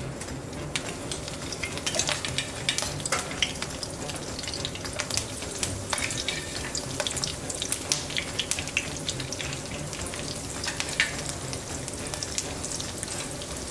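Herb-breadcrumbed sardine fillets shallow-frying in a generous layer of oil in a frying pan: a steady sizzle with frequent sharp pops and crackles, the oil hot enough to fry.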